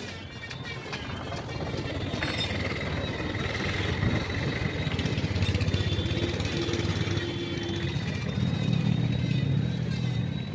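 A motor running, its low rumble building over the first few seconds and then holding steady.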